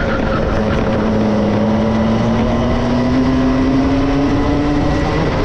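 Two-stroke racing kart engine running hard, its pitch climbing steadily for about five seconds as the kart accelerates, then falling back near the end as the revs drop.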